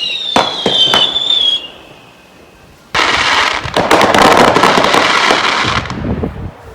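Fireworks going off close by: a whistling firework with a slightly falling whistle and a few sharp bangs over the first second and a half, then, from about three seconds in, some three seconds of dense rapid crackling.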